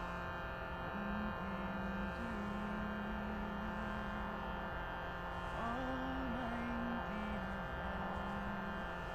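Droning music: a steady held chord under a slow melody of long, low notes that step between a few pitches.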